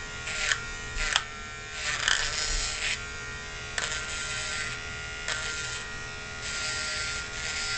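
Dremel rotary tool running at a steady whine while its bit grinds the edges of a copper wire paddle, with bursts of grinding hiss each time the metal is pressed against it, to round off the sharp edges.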